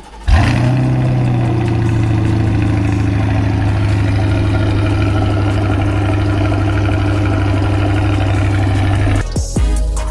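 C8 Corvette V8 cold start: it fires suddenly with a loud flare, then settles into a steady, loud idle, which cuts off about nine seconds in.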